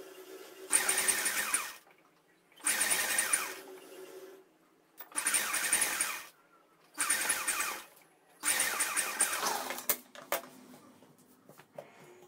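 Sewing machine stitching in five short runs of about a second each, stopping briefly between runs, followed by a few light clicks near the end.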